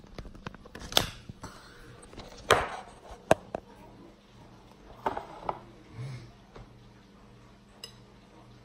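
A handful of sharp knocks and clinks at a table: a ceramic plate and metal fork being handled, mixed with bumps of the phone being set up. The loudest come in the first few seconds, with two more about five seconds in, then it quiets.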